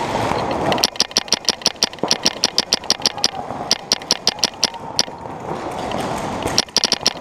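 Paintball marker firing rapid strings of shots, about eight a second, in three bursts with short pauses between them.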